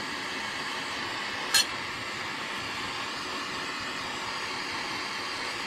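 Small handheld gas torch flame hissing steadily while it shrinks heat-shrink tubing over wire connectors, with one sharp click about one and a half seconds in.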